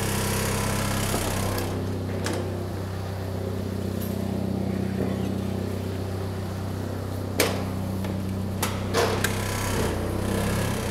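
Forklift engine idling steadily, with a few sharp knocks: one about seven seconds in and a quick pair a second or so later.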